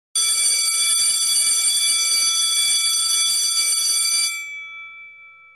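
Electric school bell ringing for about four seconds, its hammer rattling against the gong, then stopping abruptly and ringing out as it fades.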